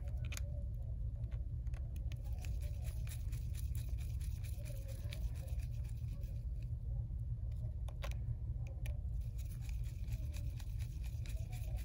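Small precision screwdriver turning the two tiny bottom screws back into an iPhone XS's frame: many faint scratchy clicks and ticks of the bit in the screw heads, with a couple of sharper ticks, over a steady low hum.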